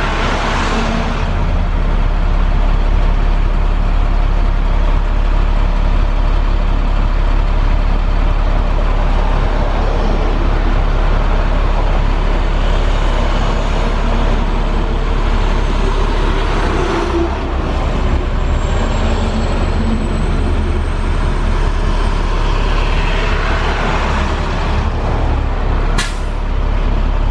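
A motor vehicle running steadily, with a strong low engine hum and road noise throughout. There is a short sharp click near the end.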